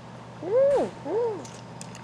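A woman humming "mmm" twice through a closed mouth while chewing seafood. Each hum rises and then falls in pitch, and together they sound like appreciation of the taste. A few faint mouth clicks come near the middle and near the end.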